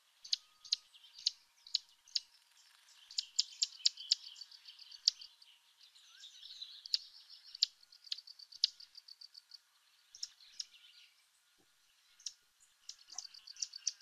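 Recording of a verdin's tick call: sharp, high ticks repeated at an uneven pace, bunched fast in places and spaced out in others, over fainter chatter.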